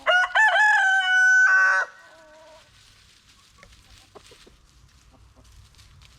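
Rooster crowing once: a loud cock-a-doodle-doo lasting just under two seconds, trailed by a short fainter note, then only faint background.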